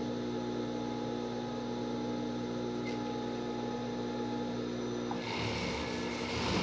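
Industrial overlock machine's motor humming steadily. About five seconds in, a short burst of stitching noise starts as the elastic edge is fed through.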